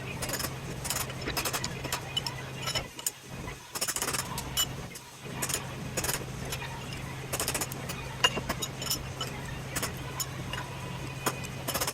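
Irregular metallic clanks and knocks from scrap electrical-panel parts being pulled apart and handled, over a steady low hum.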